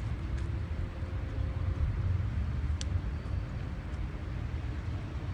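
Steady low rumble of outdoor background noise, with one faint sharp click a little before the middle.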